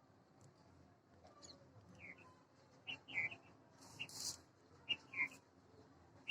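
A series of short, high chirping calls from a small animal, several coming in quick pairs, with a brief hissy burst a little after the middle.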